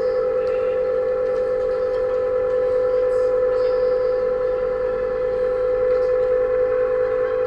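A steady, unchanging hum on one pitch with fainter higher overtones.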